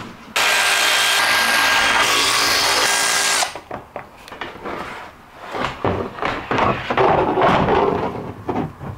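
Milwaukee cordless impact ratchet running for about three seconds, starting and stopping sharply, as it undoes a UTV roof bolt. Scattered knocks and rattles follow.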